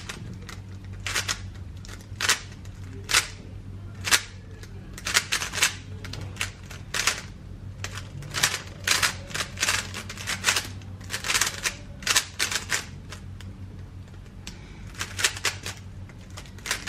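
A GAN 13 MagLev 3x3 speed cube being turned fast in a solve: a quick, irregular run of sharp plastic clicks and clacks as the layers snap round, over a steady low hum.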